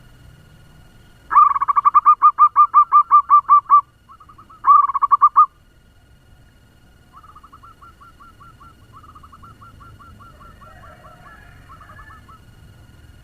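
Zebra dove singing a fast staccato coo song: a loud, rapid run of about a dozen quick notes, a brief second run, then a fainter, longer run of similar notes near the end.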